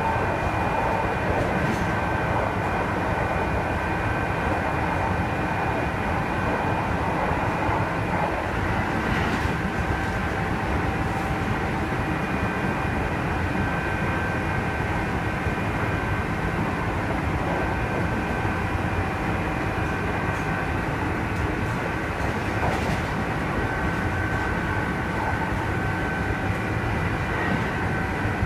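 Kintetsu 2610 series EMU running between stations, heard from inside the car: a steady rumble with high, whining tones mixed in. This blend of high and low tones is the unusual running noise that the uploader singled out on this set.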